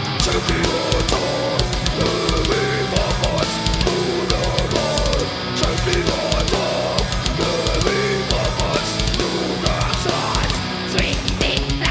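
Groove metal band playing live, with distorted electric guitars riffing over a drum kit's rapid kick-drum strokes. The kick-drum strokes get faster near the end.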